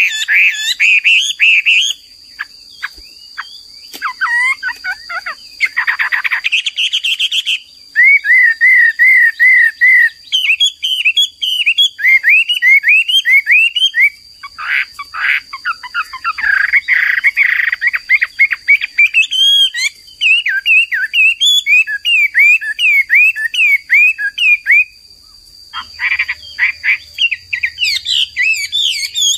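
Chinese hwamei (melodious laughingthrush) singing. It gives loud, varied phrases of rapidly repeated whistled notes that swoop up and down, with short pauses between phrases.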